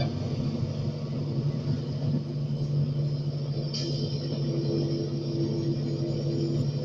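Truck engine droning steadily at cruising speed, heard from inside the cab, with a short hiss about four seconds in.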